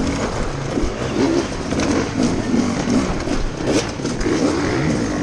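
Several enduro dirt bikes revving and accelerating together in a pack, the revs rising and falling unevenly as the riders pick their way over logs, with the onboard GasGas's own engine close and loud.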